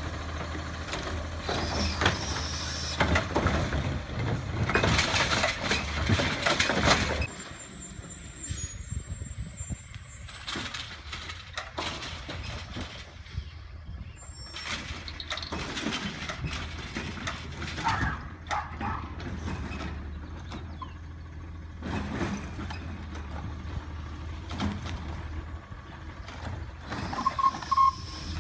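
Automated side-loader garbage truck at work: the diesel engine runs loud while the hydraulic arm lifts and empties a cart. After about seven seconds the sound drops abruptly to the truck running farther off, with scattered clanks, and a short beep near the end.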